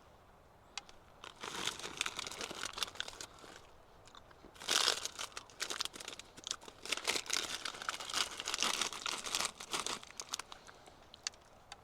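Plastic food packet crinkling and rustling as it is handled, in two long irregular bursts with a few sharper crackles, the loudest a little before five seconds in.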